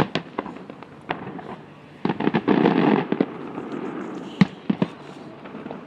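Aerial fireworks shells bursting in a string of sharp bangs. About two seconds in, a dense volley of overlapping bangs lasts about a second, followed by a few more separate bangs.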